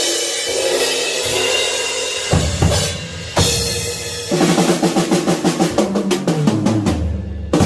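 Drum kit being played: a cymbal-led groove, then a fast fill of quick strokes stepping down in pitch across the toms, landing on a loud hit near the end.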